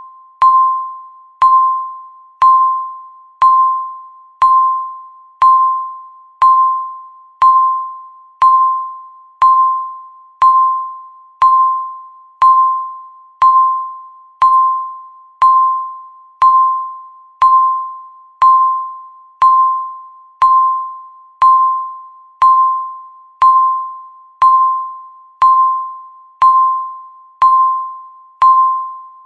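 Countdown timer beeping once a second: a short electronic tone that starts sharply and fades away, repeated evenly about 29 times.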